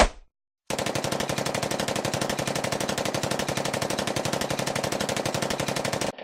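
Machine-gun fire sound effect: a brief hit, then a long continuous burst of rapid, evenly spaced shots for about five seconds that cuts off suddenly.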